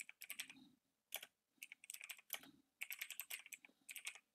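Computer keyboard being typed on: faint runs of quick keystrokes broken by short pauses.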